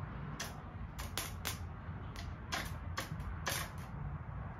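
Several sharp, irregular clicks as jumper wires are handled and touched to the electrical connections while a 50cc Chinese quad's starter is tested straight off a battery. No starter motor is heard spinning; the starter is judged no good.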